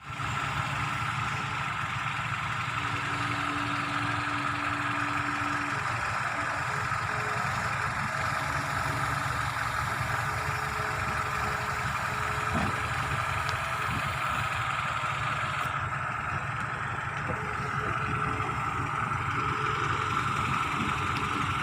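A vehicle or machine engine idling steadily, with a low rumble and a steady high whine over it.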